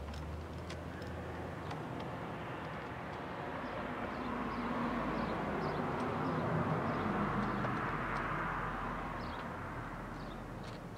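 Noise of a passing vehicle, swelling slowly to a peak about seven seconds in and then fading away.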